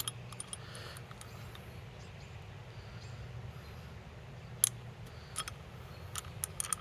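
Scattered sharp clicks and taps of bicycle seat-post parts being handled and taken apart, with one louder click past the middle and a quick run of clicks near the end, over a low steady hum.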